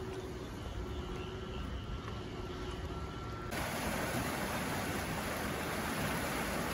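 Drainage pump station running with a steady low hum, insects chirping over it; about three and a half seconds in the sound switches suddenly to loud rushing water, the pumped-out floodwater gushing from the station's outfall into the swollen river.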